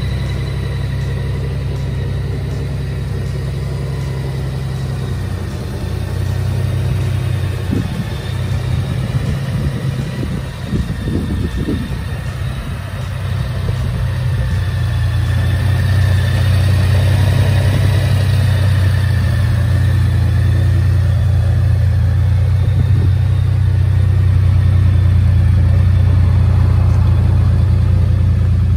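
Honda GoldWing Tour DCT's 1.8-litre flat-six engine running at a steady idle. Around ten seconds in it turns uneven for a few seconds, then settles into a steady, slightly louder run.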